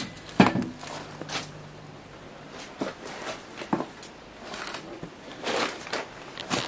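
Footsteps crunching and knocking over rubble, boards and leaf litter, in short separate crunches, with a loud knock about half a second in.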